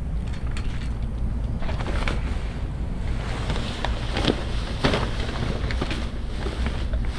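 Wind rumbling on the microphone, with irregular rustling and knocks starting about a second and a half in, sharpest around four to five seconds in.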